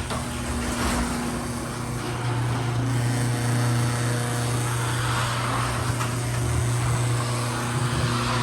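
Liftmaster 8155 belt-drive garage door opener running and moving a 16x8 Wayne Dalton sectional door: a steady motor hum with a broad rushing noise over it.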